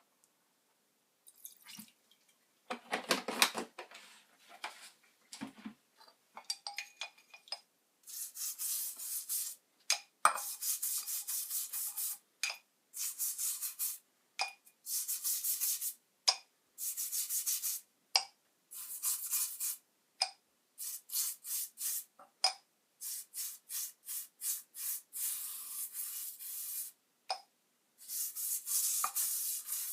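Repeated rubbing strokes, each lasting a second or so with short gaps between, after a fuller burst and a few clicks in the first seconds.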